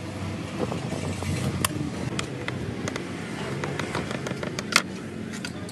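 Steady low rumble of street traffic, with scattered sharp clicks and taps of a knife on a plastic cutting board while paneer is cut; one loud click comes near the end.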